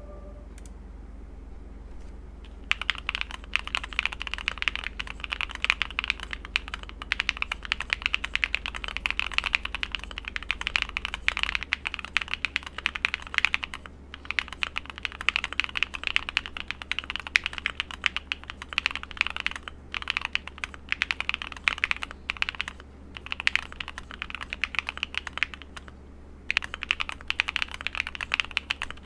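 Fast continuous typing on a Luminkey80 TKL mechanical keyboard with Gateron Sylva linear switches, stock foams and lubed stabilizers. Dense key clacks start about two and a half seconds in, with a few short pauses.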